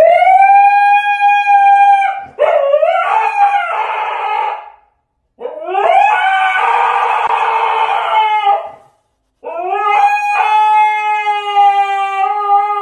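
Siberian husky howling: four long, drawn-out howls, each rising at the start and then held steady, the middle two rougher and wavering.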